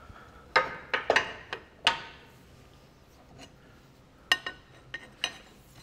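Sharp metallic clinks and knocks of a steel spanner and the steering pedestal's arm and nut being handled, in two clusters: about four between half a second and two seconds in, and four more from about four to five and a half seconds in.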